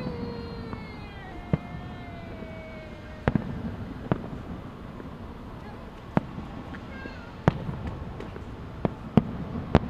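Distant aerial fireworks shells bursting in sharp, irregular bangs, about eight in all, over a steady background hum. A long, slowly falling tone is heard over the first three seconds.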